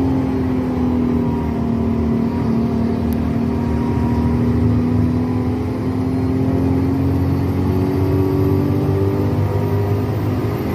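Intercity bus's diesel engine running under way, heard from inside the bus. Its note dips early and then climbs slowly as the bus picks up speed.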